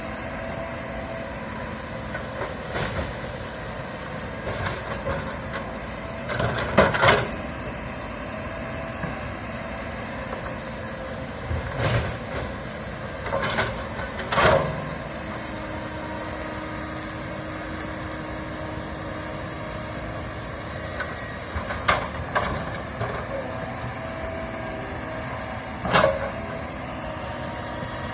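Komatsu hydraulic excavator's diesel engine running steadily, with a series of sharp knocks and clanks from the machine at work, the loudest coming twice about seven seconds in and again late on.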